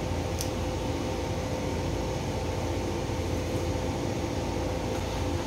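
Steady motor hum with a constant tone running through it, level and unchanging throughout.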